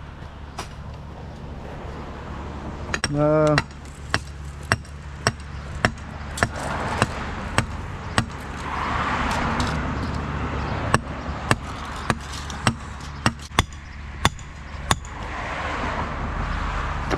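A hammer striking in steady blows, about one every half second to second, over a constant low engine hum. A short, loud pitched sound comes about three seconds in.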